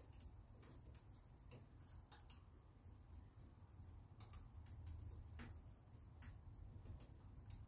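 Near silence with faint, irregular light clicks and ticks of the welding wire and small metal parts being handled at a MIG welder's wire spool and feed mechanism.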